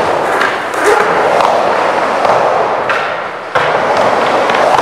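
Skateboard wheels rolling loudly on a wooden vert ramp, with several knocks from the board and trucks in the first few seconds. The rolling eases briefly, then comes back suddenly and loud about three and a half seconds in.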